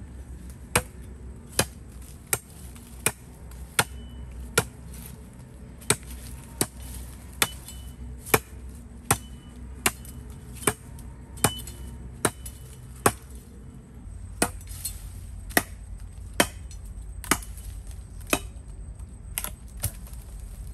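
Firewood being chopped with a blade: sharp, evenly paced strikes about every three-quarters of a second, some two dozen in all, over a steady low background noise.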